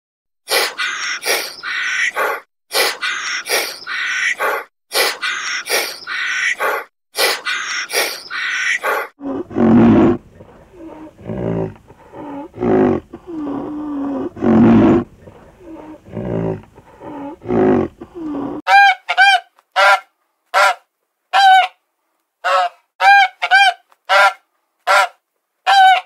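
A run of animal calls in three parts. First comes a quick series of short, harsh, rasping bursts. Then come low pitched calls. From about two-thirds of the way in, there is a string of short repeated honks like a swan's or goose's.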